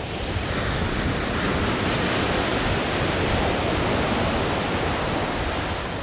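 Ocean surf breaking and washing up a sandy beach, a continuous rushing hiss that swells over the first couple of seconds and eases a little near the end.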